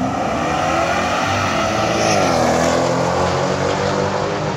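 Street car's engine at full throttle off the drag-strip start line, its pitch rising, then falling sharply about two seconds in at a gear change, then pulling on down the track.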